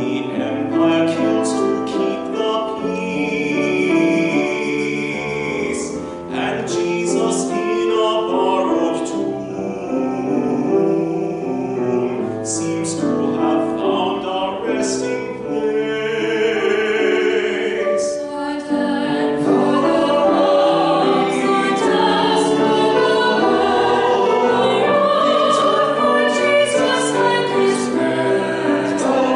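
A small vocal ensemble of women's and men's voices singing a sacred piece in parts, accompanied by a grand piano.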